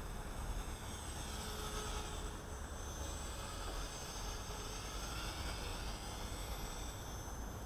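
CopterX CX250SE 250-size electric RC helicopter in flight: a high whine from its motor and rotors that drifts up and down in pitch as it moves about, over a low rumble.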